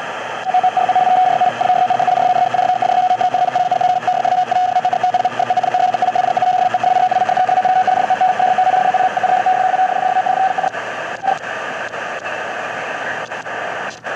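Shortwave radio static from a QFX portable cassette radio, with a single steady tone over the hiss. The tone comes in about half a second in, holds for about ten seconds, then drops out, leaving static and one short blip.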